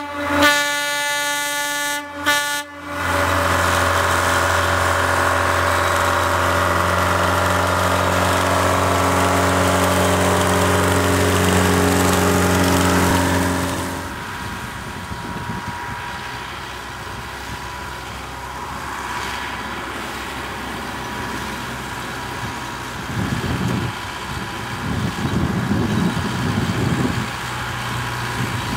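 Narrow-gauge locomotive sounding a few short horn blasts, then running loud and steady as it comes close, with a slowly falling pitch. About halfway through this stops abruptly and is followed by a quieter train sound from farther off, with some rough rushing noise.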